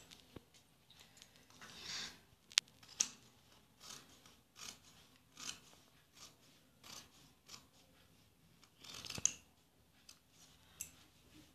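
Tailor's scissors cutting through folded cotton fabric along a chalk line: about a dozen separate snips, roughly one a second, a few of them with a sharp click as the blades close.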